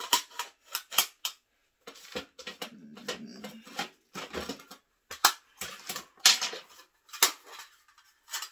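Rifle magazines being handled and seated into an AR-15's Ready Mag side-mounted magazine holder: a string of sharp clicks and clacks, with a scraping rub around the middle.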